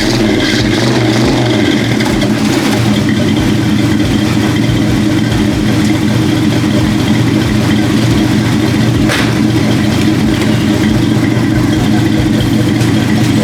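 1973 Oldsmobile Delta 88's V8 engine idling steadily just after an easy start.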